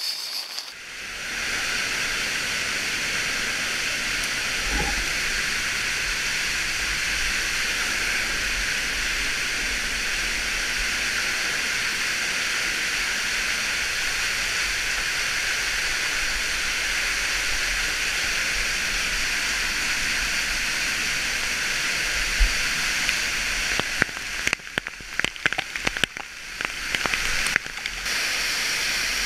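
Underground waterfall: water pouring down a cave's rock face in a steady, loud rush close to the microphone. For a few seconds near the end the rush breaks up, with sudden dips and knocks.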